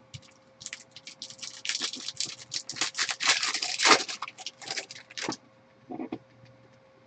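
A plastic trading-card pack wrapper being torn open and crumpled by hand: a rapid, crackling run of rips and crinkles lasting about four and a half seconds, followed by a few softer rustles.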